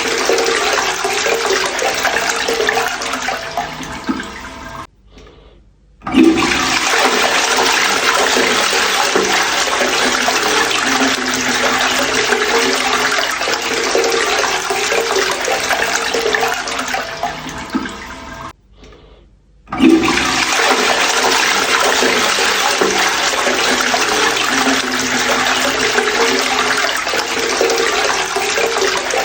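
Toilet flushing over and over: a loud rush of water that tails off, a second of quiet, then a new flush starts suddenly, twice, about every 13 to 14 seconds.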